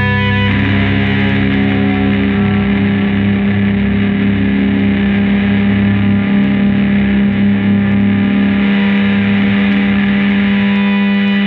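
Improvised noise-rock drone from distorted electric guitars: a steady low note is held while a wash of noisy, effects-laden distortion comes in about half a second in and keeps on.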